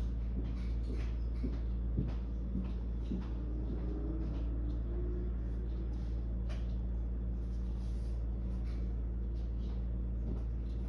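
Steady low hum with scattered faint clicks and small knocks: the room tone of an open speakerphone line while the call waits silently on hold.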